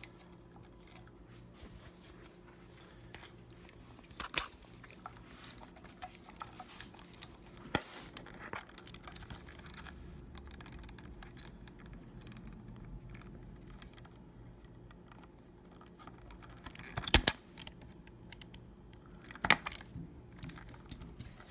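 Scattered sharp snips and clicks of cutters cutting the small cable-tie bundles on a ceiling fan's light-kit wiring, with quiet handling noise between, over a faint steady hum. The loudest snap comes about 17 seconds in, and another about two seconds later.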